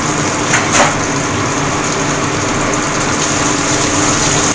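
Steady rushing kitchen noise with a faint low hum underneath and a brief hiss about a second in.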